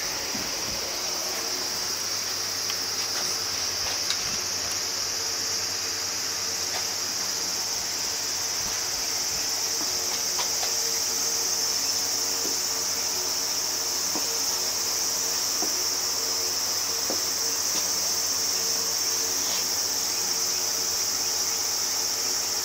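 Steady, high-pitched chorus of insects chirring, a little louder after several seconds, over a faint low steady hum.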